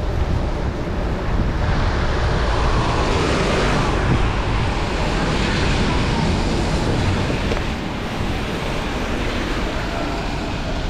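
Steady wind rumble on the microphone of a moving bicycle, under the hiss of wet road and passing traffic in the rain.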